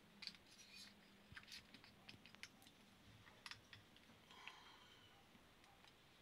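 Faint, scattered clicks and light scrapes of a selfie-stick tripod being handled, its plastic phone clamp and metal shaft being worked by hand.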